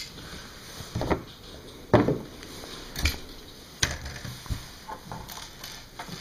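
Plastic LEGO cement mixer truck being handled by hand: a few light knocks and clicks, about one a second.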